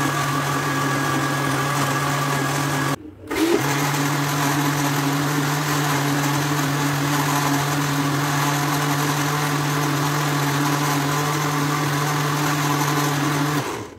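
Countertop electric blender running at a steady speed, whirring through a thin mix of yogurt, water and salt to make lassi. The sound breaks off for about half a second roughly three seconds in, then runs on and stops near the end.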